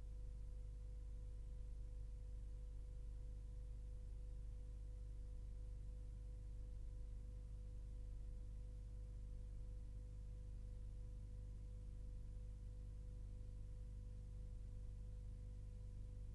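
Steady low hum with a faint, thin steady tone and light hiss, with no other sound: the soundtrack's background noise.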